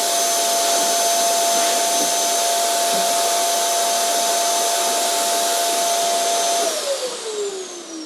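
Vacuum cleaner motor running steadily with a high whine over rushing air, then switched off near the end: the whine drops in pitch and fades as the motor spins down.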